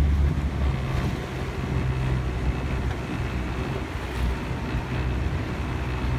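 Wind buffeting the microphone over the steady low hum of a motorboat engine, with the wash of water on the hull.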